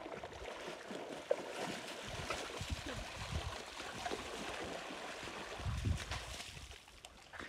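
Pond water sloshing and splashing as people wade through the shallows leading a wet animal out of the water, with heavier surges of splashing twice.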